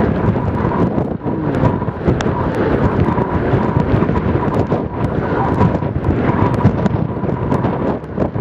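Strong, gusting wind buffeting the microphone over heavy Lake Superior waves breaking, a loud, constant rushing noise that swells and dips with the gusts.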